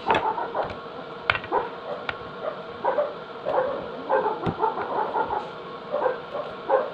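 A dog barking over and over in short barks, with a few sharp clicks mixed in.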